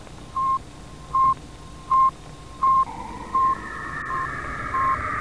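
A string of short electronic beeps at one steady pitch, about one every three quarters of a second, counting down. From about halfway a noisy hiss rises and grows louder beneath them as the beeps get fainter.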